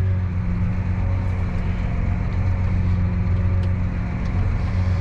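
Tractor engine running steadily while pulling a ripper through the field, a constant low drone.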